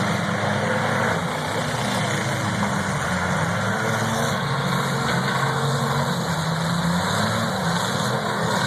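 Demolition derby cars' engines running loudly and steadily, their pitch wavering up and down as they rev.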